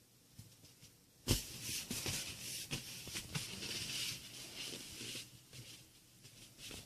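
A cat tussling with a rubber ball: hissy, scratchy noise in uneven strokes, after a sharp click about a second in.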